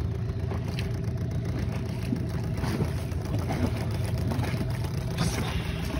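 Boat engine running steadily, a low even drone with no rise or fall in speed.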